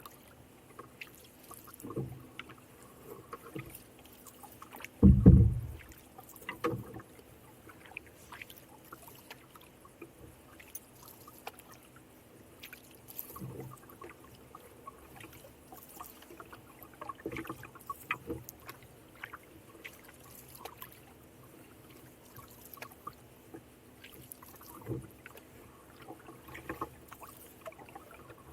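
Canoe being paddled: quiet paddle strokes with small splashes and drips in the water, a few soft knocks against the hull, and one loud low thump about five seconds in.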